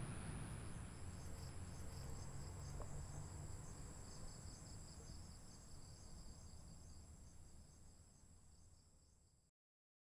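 A chorus of insects chirping in a steady, fast-pulsing high drone over a low rumble, fading out gradually and cutting off just before the end.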